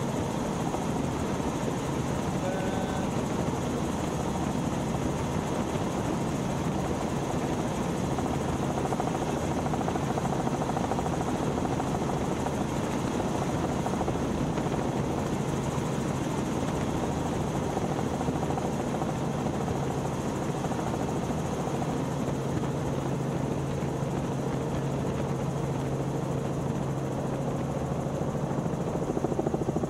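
Robinson R44 helicopter in cruise flight heard from inside the cabin: a steady drone of the main rotor and its six-cylinder Lycoming piston engine.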